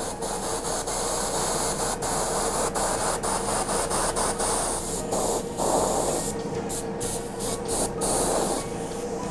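Bottom-feed airbrush spraying jet black paint, a steady hiss of air that breaks off for moments several times as the trigger is let go, more often in the second half. A steady hum runs underneath.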